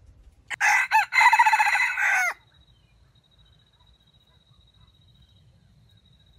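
Red junglefowl rooster crowing once, a loud crow of about two seconds with a short broken opening and a falling end.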